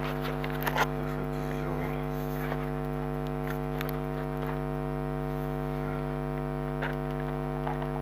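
Steady electrical mains hum with a few faint clicks and taps from the work on the anti-roll-bar link.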